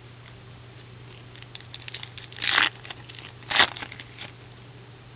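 Crinkling and tearing of a baseball-card pack wrapper being ripped open, with two loud rips near the middle among smaller crackles.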